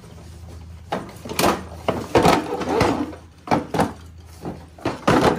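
Hard plastic tool case being shifted in and lifted out of a tool trolley's tray: a string of knocks, scrapes and clatters.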